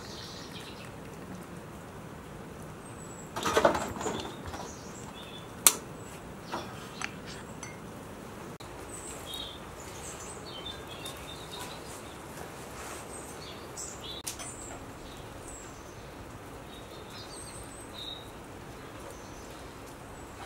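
Small birds chirping over a steady background hiss, with tea things being handled: a clatter about three and a half seconds in, the loudest sound, then a sharp clink near six seconds and a few lighter clicks.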